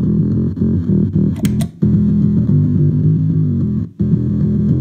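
Electric bass played through a gated bass fuzz pedal with the drive fully up and the gate set to hard, giving a thick, synth-like fuzz tone on a short riff. The gate chops the sound off abruptly twice, about two and four seconds in, as the notes stop, with a few sharp clicks shortly before the first cut.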